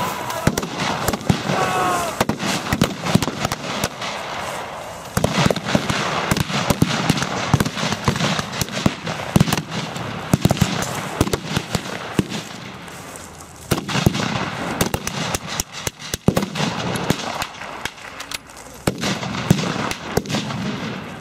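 Rifle and submachine-gun blanks being fired in a battle reenactment: many irregular single shots and short bursts throughout, some sharp and close, others further off.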